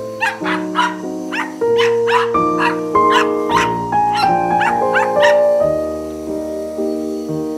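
Small dogs yipping and barking in a quick run, about three a second, stopping about two thirds of the way through, over background music with held notes.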